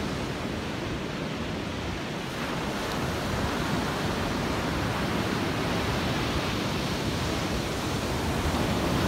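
Ocean surf breaking and washing up a sandy beach, a steady rushing wash of waves that grows a little louder about two and a half seconds in.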